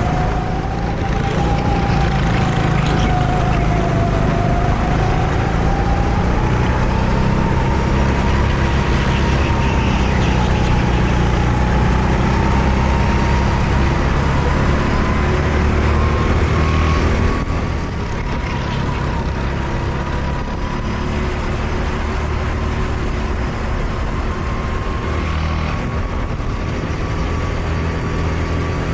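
Go-kart engine running hard on track, its pitch wandering up and down with speed and slowly rising overall. The sound becomes a little quieter and duller about 17 seconds in.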